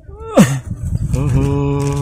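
A man's wordless appreciative vocalising: a short exclamation that falls steeply in pitch, then a long hum held on one steady note.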